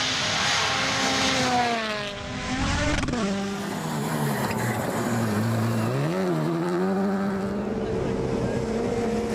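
Rally car engine running hard through gear changes: its pitch falls about two to three seconds in, stays low, briefly rises and dips around six seconds, then climbs and holds.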